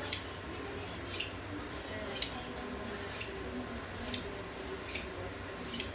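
Steel knife edge drawn across a Noble ceramic sharpening rod: seven short, high scraping strokes, about one a second, honing an edge that has been deliberately dulled.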